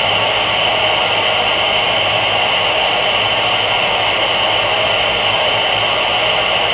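AM CB radio receiver putting out a steady loud hiss of static with a faint low hum, with no voice on the channel between transmissions.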